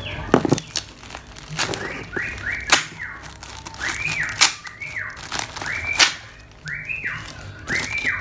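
Scissors snipping and black plastic packaging being cut, torn and crinkled by hand, with a few sharp snaps. Behind it, a high whistle-like tone rises and falls, repeating about once a second from about two seconds in.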